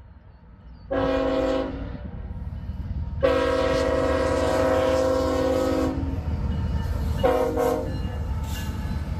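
Diesel freight locomotive's air horn sounding for a grade crossing: a short blast about a second in, a long blast of about three seconds, then another short blast, over the steady low rumble of the locomotives passing.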